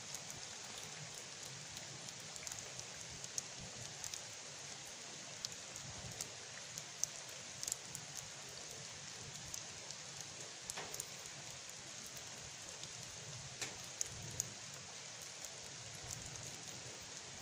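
Light rain falling: a steady soft hiss with scattered drops ticking now and then.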